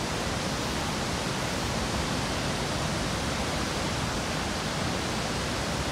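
Steady, unbroken rush of a flood-swollen river: muddy floodwater churning in standing waves through a floodway and around bridge piers, its water level high after heavy rain.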